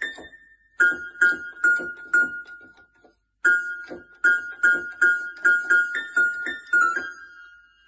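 A cat pawing at the keys of an electronic keyboard: one or two high notes struck over and over, about twice a second, each ringing briefly. There is a pause of about a second partway through.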